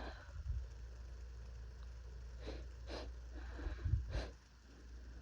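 A person with a heavy cold sniffling and taking short, sharp breaths through a stuffed nose between sneezes, four quick ones in the second half, with a couple of low bumps, the loudest about four seconds in.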